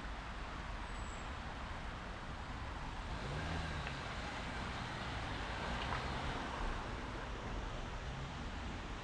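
A motor vehicle engine passing on a wet street, coming in about three seconds in and loudest around six seconds, over a steady hiss of rain and traffic.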